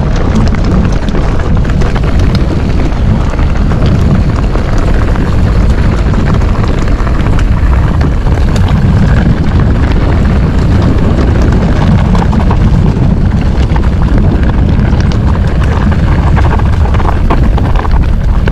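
Wind buffeting a GoPro's microphone while a Commencal Meta TR 29 mountain bike is ridden down a rough trail, with a constant low rumble and a stream of quick clicks and clatters from the bike and tyres over the ground.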